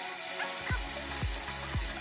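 Background music with a steady kick-drum beat about twice a second, the beat coming in a little under a second in, over the hiss of pork steaks sizzling in a frying pan.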